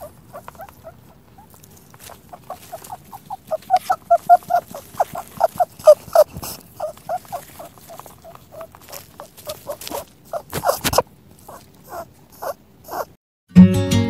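A rapid run of short, high squeaks from a small animal, several a second, loudest in the middle, with a couple of sharp clicks a few seconds before the end. Near the end the squeaks stop and strummed acoustic guitar music begins.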